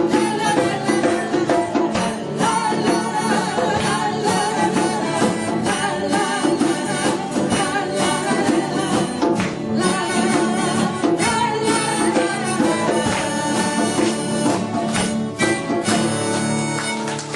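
A band playing a song on guitar and acoustic guitar, with a singing voice and a regular percussion beat.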